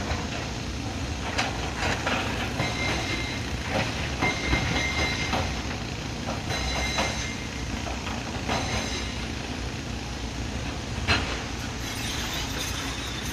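Heavy machinery running with a steady low rumble, scattered metallic clanks and brief high squeals.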